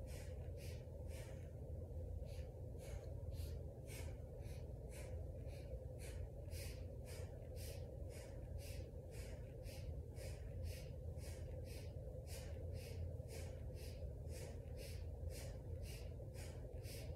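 A woman's rapid, powerful breathing, in and out about twice a second in an even rhythm, paced to quick leg pumps in a Kundalini yoga core kriya (Nabhi Kriya). A faint steady low hum lies beneath it.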